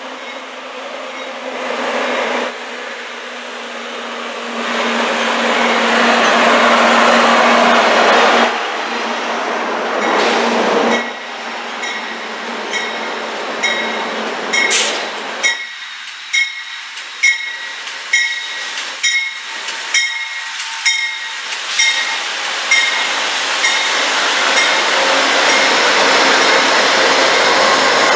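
Amtrak GE Genesis diesel locomotives arriving on a station track, their engines growing louder as they approach. From about halfway through, the locomotive bell rings steadily, about a stroke every two-thirds of a second, before the engine noise swells again as the units pass close by.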